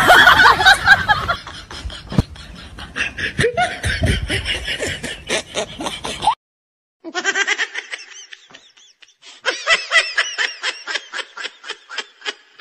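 Laughter in quick, evenly repeated ha-ha pulses after a loud burst at the start. It cuts off abruptly about six seconds in and starts again a second later.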